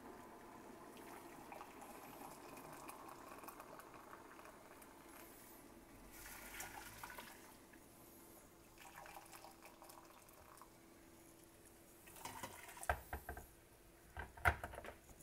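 Hot water poured from a glass measuring cup into a stainless steel pressure-cooker pot in several pours, with a few sharp clinks near the end.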